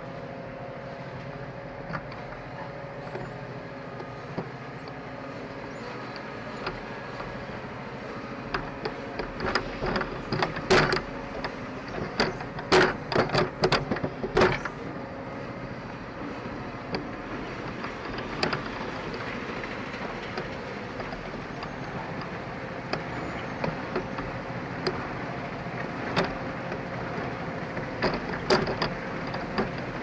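Truck-mounted wood chipper running steadily with a constant drone as a crane feeds a whole log into it. Sharp cracks and snaps come as the wood is chipped, thickest in a burst about a third of the way in and again briefly near the end.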